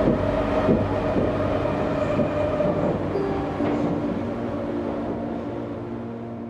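Singapore MRT train carriage heard from inside while running: a steady rumble of wheels on rail and motor hum with a faint whine. The noise eases off gradually through the second half.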